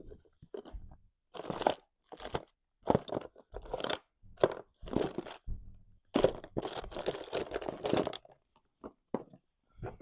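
Crinkling, rustling handling noise in a string of short bursts as craft supplies are rummaged through.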